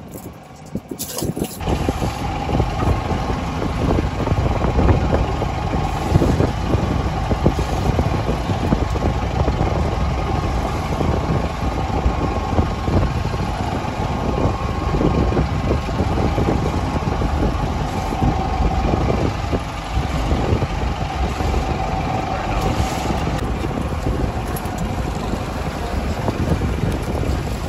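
Boat engine running steadily, setting in about a second and a half in, with a faint steady hum through the low rumble.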